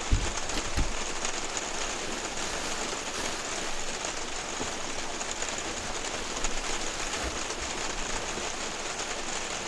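Rain falling on a camper van's roof, heard from inside as a steady hiss, with a couple of low knocks in the first second.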